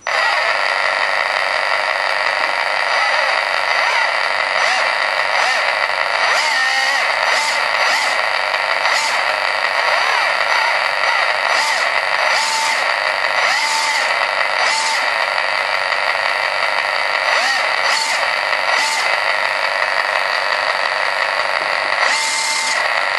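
Simulated engine sound from a scale RC Toyota Hilux's sound unit, played through a small speaker: a thin, steady engine note with several short revs. It starts and stops abruptly.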